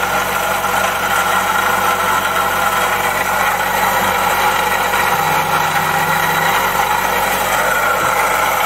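Chevy Volt Gen 1 range-extender engine running steadily with the noise of its failing water pump, whose bearing is loose and wobbly: the sign of a bad water pump.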